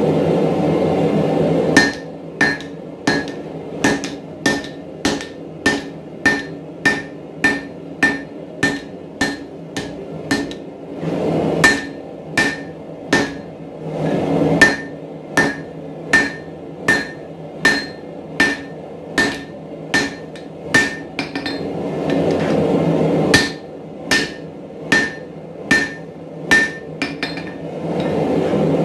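Hand hammer striking red-hot 4140 steel on an anvil, about two blows a second in four bouts, each blow with a short metallic ring. A steady roar fills the gaps between bouts.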